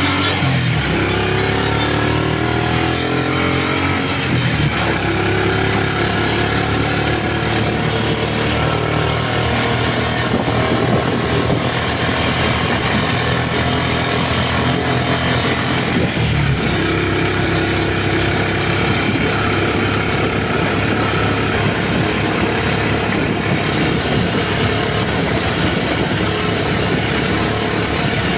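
Motorcycle engine of a sidecar tricycle running under way, its pitch climbing as it picks up speed in the first few seconds and again a little later, then dropping sharply about 16 seconds in before climbing once more. Wind and road noise run underneath.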